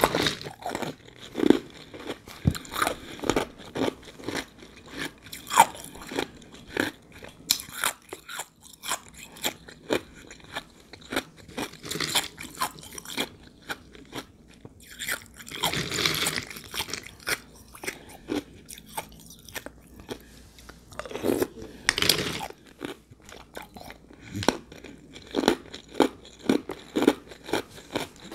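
Close-miked crunching and chewing of ice soaked in juice: many short, sharp crunches as the ice is bitten and chewed, with a couple of longer crackly crunches in the middle.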